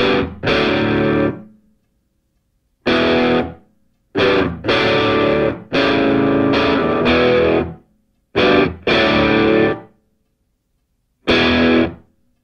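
Intro music on distorted electric guitar: chords played in stop-start bursts, each cut off sharply into complete silence before the next.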